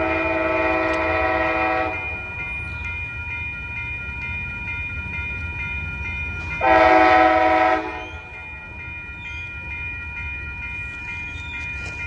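The horn of an Amtrak ALC-42 Charger locomotive sounding as the train passes: a long blast that ends about two seconds in, then a short blast about seven seconds in. Under it are the train's steady low rumble and a steady high ringing.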